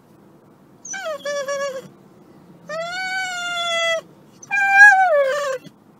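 A dog giving three long, high-pitched whining howls. The middle one is the longest and holds its pitch; the last one slides down in pitch.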